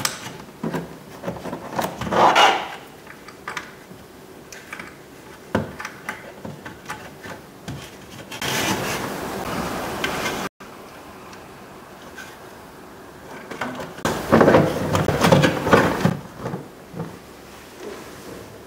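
Plastic clicks, knocks and rubbing from handling car door trim: electrical connectors being plugged into the window switch and the switch panel being seated. Two longer spells of scraping and rubbing come about eight seconds in and again about fourteen seconds in.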